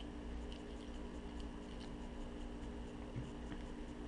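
Faint small clicks and handling noises from plastic outboard fuel pump parts being turned in the fingers and set down, over a steady low hum.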